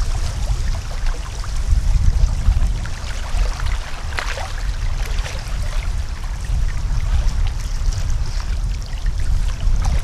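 Water trickling and splashing gently in small scattered ticks, over a steady low rumble.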